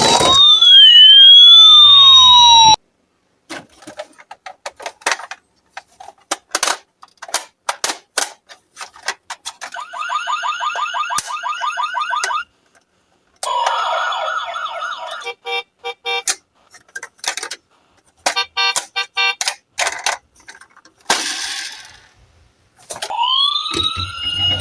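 Emergency-vehicle sirens wailing, two rising and falling tones crossing each other, then cutting off suddenly about three seconds in. Quieter clicks and clatter follow, with stretches of fast repeating pulsing tones. A siren wail comes back near the end.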